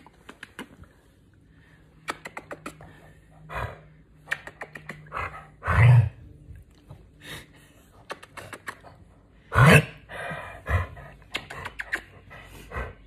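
An elderly dog vocalising in protest while being kissed: two loud, short outbursts about six and ten seconds in, with fainter ones around them. Between them come quick clicking kiss smacks.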